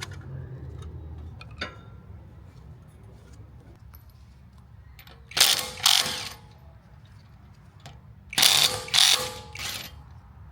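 Ratchet wrench clicking in short loud bursts, two pairs of them, about five seconds in and again near the end, with faint ticks of tools in between.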